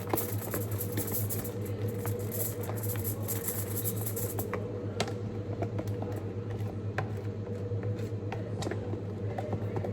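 Plastic spoon stirring and working fluffy slime in a pot, with sharp clicks as the spoon knocks against the pot, over a steady low hum.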